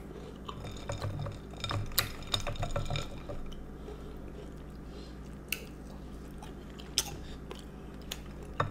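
Close-miked eating of a chocolate chip cookie with a bowl of iced milk: wet chewing and liquid sounds, with a handful of sharp clicks scattered through.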